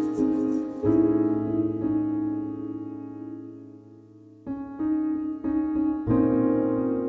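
Background music of slow sustained chords. One chord rings and fades almost away, then a run of new chords starts about four and a half seconds in.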